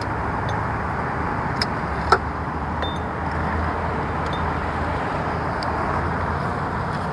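Steady background rumble like distant traffic, with a couple of light metallic clinks about two seconds in, hand tools touching metal in the engine bay.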